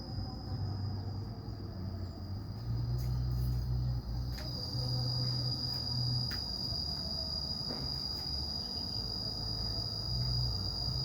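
A steady high-pitched insect trill, a little stronger from about four seconds in, over a low rumble that comes and goes, with a few faint clicks.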